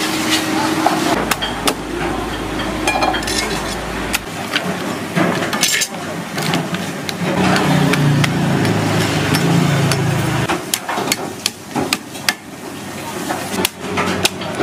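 Irregular knocks and sharp cracks of a cleaver and knife chopping through lobster shell on a thick wooden chopping block. A low rumble comes in for about three seconds midway.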